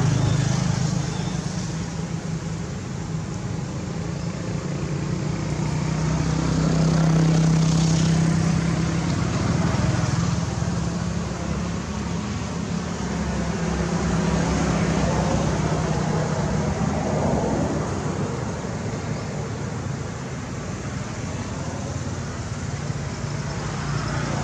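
Steady low rumble of motor traffic, swelling louder twice and easing off again.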